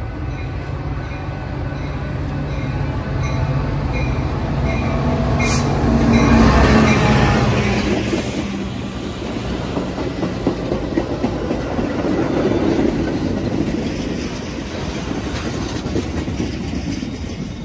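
Metra diesel push-pull commuter train passing close by, its bilevel coaches' wheels running on the rails. The noise builds to its loudest about six seconds in as the train reaches the platform, then carries on steadily as the coaches roll past.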